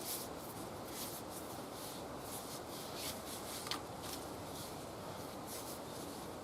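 Irregular rubbing and scraping strokes, with one sharp click a little past the middle, over a steady hiss.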